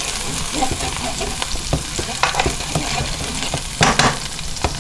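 Minced garlic sizzling in olive oil in a nonstick frying pan, while a wooden spoon scrapes and taps against the pan as it is stirred. There are a couple of louder knocks about four seconds in and near the end.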